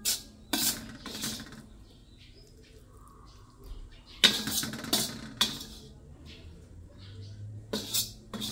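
Metal spatula scraping the stainless steel wok and knocking against the bowl as the cooked filling is scooped out, in short clattering strokes with pauses between: a cluster in the first second and a half, another about four to five and a half seconds in, and a last pair near the end.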